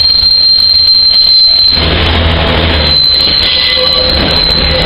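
Diesel multiple-unit trains running past close by: low rumble and running noise with a steady high-pitched squeal over it. The sound changes abruptly a little under two seconds in.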